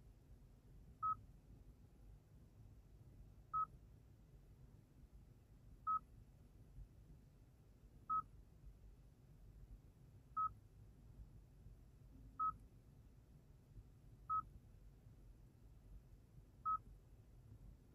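A short, high electronic beep repeating about every two seconds, eight times, over a faint low hum.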